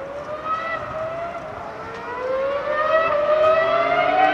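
Ferrari Formula 1 car's V10 engine accelerating out of sight, its high pitch climbing through each gear and dropping back at every upshift. It grows louder as the car approaches.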